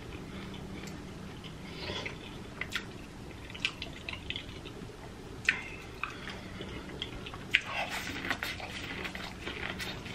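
Close-miked wet eating sounds: chewing and lip smacking, and sticky fingers working in butter sauce, with a couple of sharp clicks. Near the end comes biting into buttered corn on the cob.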